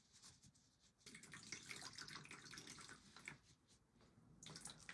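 Damp moss being handled and pressed down with gloved hands, faint: a patter of small wet crackles and rustles for a couple of seconds, then a few soft clicks near the end.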